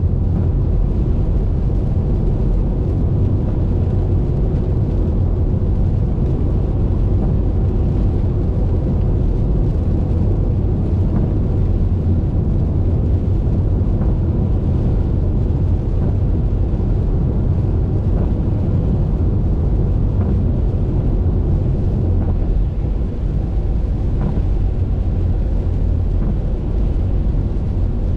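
Steady low rumble of a car driving at highway speed: tyre, road and wind noise, with a few faint ticks.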